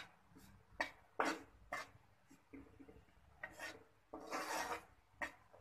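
Steel spatula scraping and stirring gram flour (besan) as it roasts in ghee in a kadhai on low heat. It comes as a series of separate short scrapes, one every second or so, with one longer scrape a little after four seconds in.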